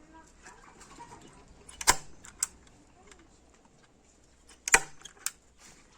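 Four sharp knocks in two pairs, a loud one followed about half a second later by a lighter one, from work on the fence of a chick pen.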